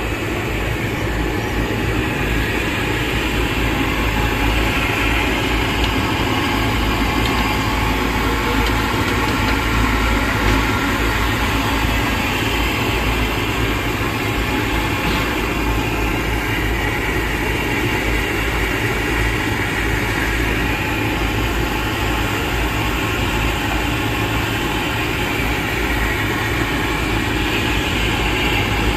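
French fries deep-frying in large woks of hot oil: a steady sizzle over a constant low rumble.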